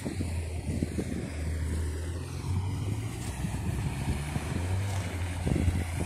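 Wind buffeting a phone's microphone outdoors: a low, irregular rumble.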